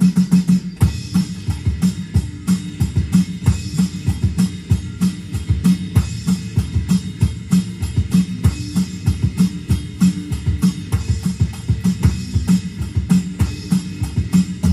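Roland electronic drum kit played in busy improvised drumming: a fast, dense run of bass drum and snare strokes.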